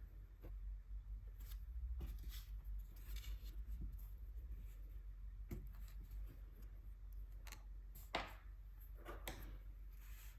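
Faint scattered taps and clicks of gouache painting supplies being handled on a desk, with a soft brushing rustle about three seconds in and a sharper click about eight seconds in.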